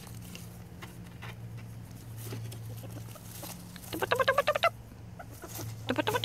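Baby ferret dooking: two bursts of rapid clucking chuckles, each under a second, about two seconds apart, the excited sound ferrets make at play.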